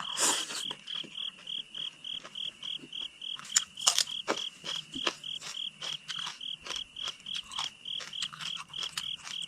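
A cricket chirping steadily in a regular pulse, about three chirps a second, with close chewing and mouth clicks of someone eating over it.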